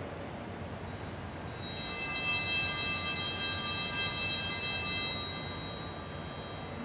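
Altar bells (sanctus bells) rung at the elevation of the host during the consecration. The ringing swells to a shimmering cluster of high tones and fades away over a few seconds.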